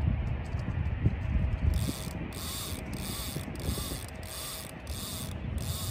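A fishing reel's drag screaming as a fish takes the bait and runs off with line. It starts about two seconds in and comes in repeated buzzing surges with short breaks between them.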